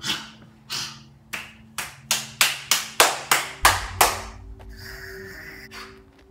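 About a dozen sharp hand smacks (claps or slaps), coming faster and faster, then stopping a little past the middle, over a low steady hum.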